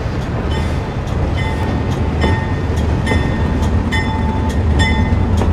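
Vintage railway car rolling on jointed rail: a steady low rumble with irregular metallic clacks from the rail joints and short high-pitched squeals and rings from wheels and running gear.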